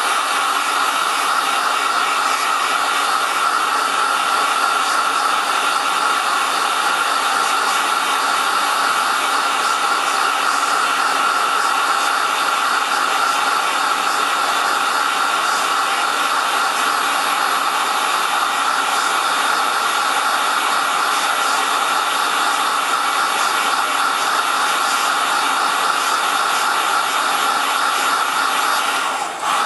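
Electric heat gun running steadily, a loud rush of hot air with a steady whine in it, blowing on heat-shrink tubing to shrink it down. The sound dips briefly near the end.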